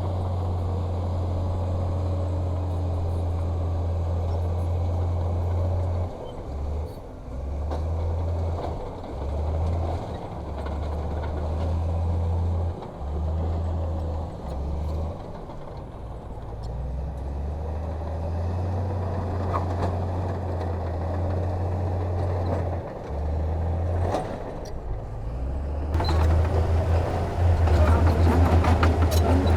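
Heavy construction machinery's diesel engine running, a low rumble that keeps dropping out and returning from about six seconds in and grows louder near the end.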